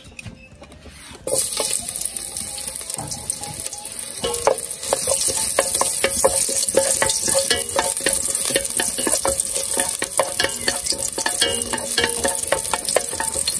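Chopped garlic hits hot oil in an aluminium pot, starting a sudden sizzle about a second in that grows louder a few seconds later. Wooden chopsticks stir it, clicking and scraping against the pot.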